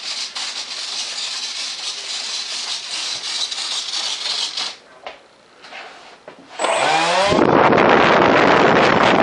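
Rubbing and hissing for the first few seconds, then about six and a half seconds in a 70 mm electric ducted fan spools up with a rising whine and runs loud and steady at high throttle, blowing air through its thrust vector nozzle.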